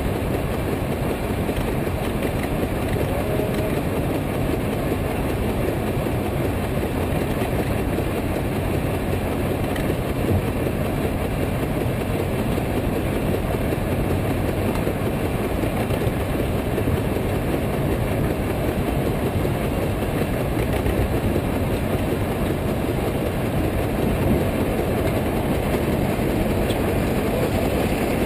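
110 hp Case steam traction engine running on a brake under load, its stack exhaust beating steadily.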